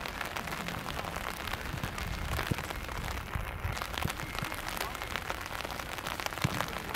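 Steady rain falling: an even hiss with many scattered light ticks of drops.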